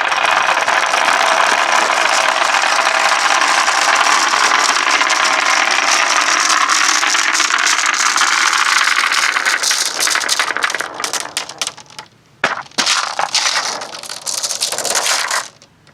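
Many glass marbles rolling and rattling down a wooden marble-run track in a dense, steady clatter. After about ten seconds it thins into separate clicks and knocks as fewer marbles are left, then stops abruptly near the end.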